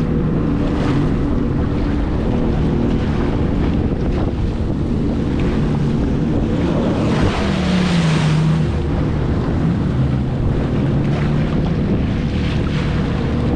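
Jet ski engine running at low, varying throttle, its pitch drifting up and down, with wind buffeting the microphone and water splashing around the hull; a louder rush of spray and wind comes about halfway through.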